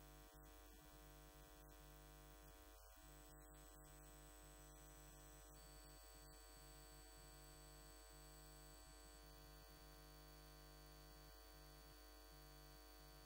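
Near silence: a faint steady electrical hum and hiss.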